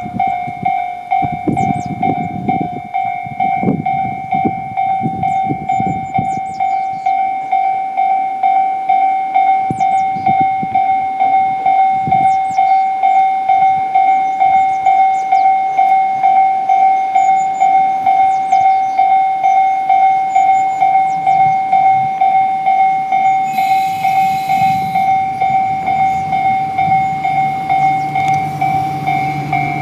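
Railway warning alarm at a station as a train arrives: a single loud electronic tone pulsing about twice a second without a break. Low train rumble comes in the first few seconds, and a brief burst of noise near the end.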